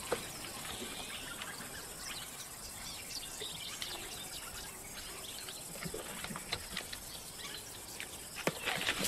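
Faint bush ambience of insects with scattered short bird chirps. A few short scraping knocks come near the end.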